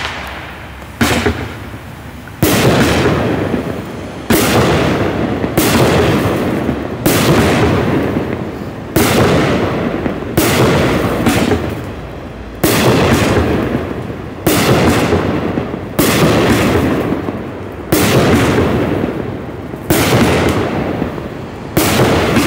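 Black Cat 'American Summer' 36-shot consumer firework cake firing shot after shot. A sharp bang comes about every one and a half to two seconds, about thirteen in all, and each fades away before the next.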